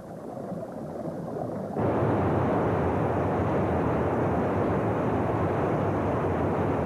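Water gushing at full force from a dam's outlet in a jet of spray: a steady loud rush. It swells in gently, then jumps up sharply about two seconds in.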